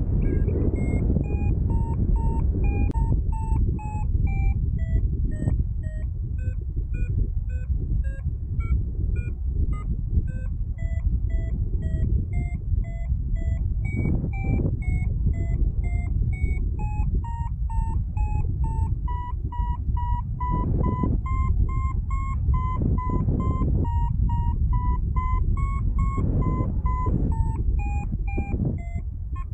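Paragliding variometer beeping in short tones whose pitch steps up and down with the rate of climb, settling higher and steadier in the second half: the climb tone of a glider in rising air. Wind rushes loudly over the microphone underneath.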